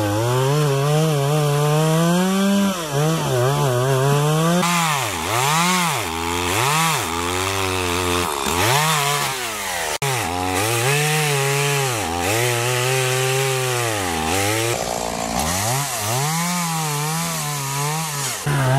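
Two-stroke chainsaw cutting through a fallen pine trunk. The engine pitch rises and dips again and again, about once a second, as the throttle is worked and the chain bites into the wood.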